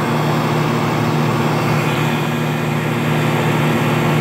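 1977 EQK Dynamic 23,700 BTU air conditioner running with a mean-sounding compressor: a steady low hum under an even rush of air.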